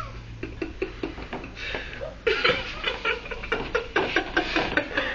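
Stifled, breathy laughter: short bursts of snickering, getting louder about two seconds in.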